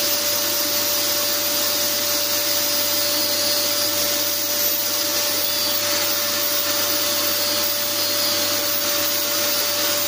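Handheld electric belt file (narrow belt sander) running steadily against the bilge floor, together with a vacuum drawing off the dust, with a steady hum under the noise.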